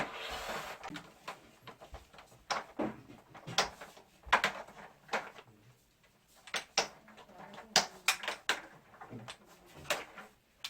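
Irregular clicks and knocks of a wall-mounted air conditioner's casing and parts being unclipped and handled during disassembly for cleaning, with a short rustle in the first second.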